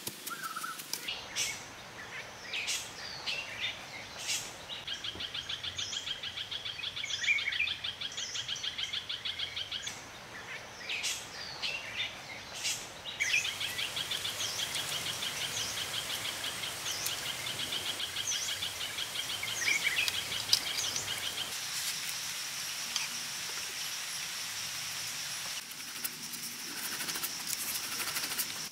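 Forest ambience: birds chirping over a rapid, pulsing insect trill, which gives way to a steady high insect whine near the end. A few sharp clicks come through in the first seconds.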